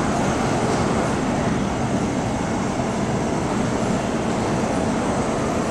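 First-generation MTR M-Train running through an underground station without stopping: a steady, even running noise of the train on the track.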